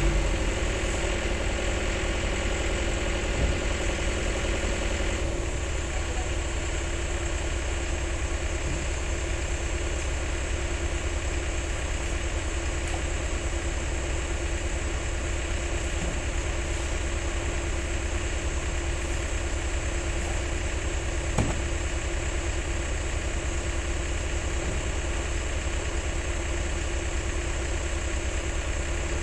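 Heavy diesel engine of an excavator or truck running steadily, its note shifting about five seconds in, with two short metallic clunks, the louder one about twenty-one seconds in.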